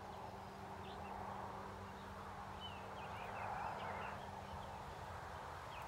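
Quiet rural outdoor background: scattered faint bird chirps over a steady low hum.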